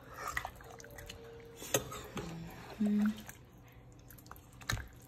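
A slotted spoon stirring and scooping oxtails and chopped vegetables in gravy in a slow-cooker crock: soft wet squishing with a few light clicks of the spoon against the pot. A short low voiced hum sounds about three seconds in.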